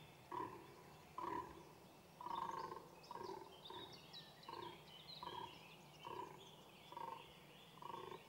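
Fallow deer bucks calling in the rut: short barks repeated about once every three-quarters of a second, faint.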